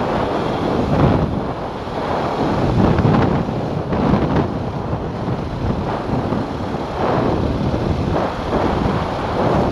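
Wind rushing over a helmet-mounted camera microphone on a motorcycle riding at about 28 mph, swelling and easing in gusts.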